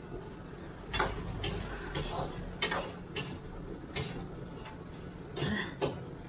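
A person sniffling and drawing short sharp breaths, about eight irregular bursts, from the burn of very spicy instant noodles.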